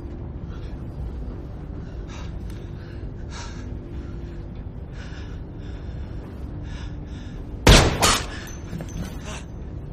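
A steady low drone of a C-130 transport plane's cabin, with a few short breathy gasps, then a sudden loud bang about three-quarters of the way through, followed quickly by a second bang.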